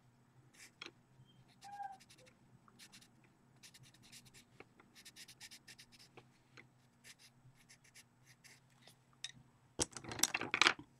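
Derwent pastel pencil scratching on colouring-book paper in faint, quick shading strokes. Near the end comes a louder burst of rustling and handling noise.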